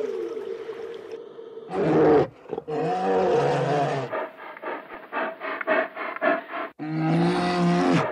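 Polar bear vocalizing: long, low groaning calls, and in the middle a quick run of short pulsed grunts, about five a second. At the very start the tail of a whale's falling moan fades out.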